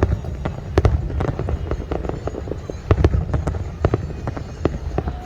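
Fireworks going off in quick, irregular succession: many sharp bangs and cracks over a steady low rumble.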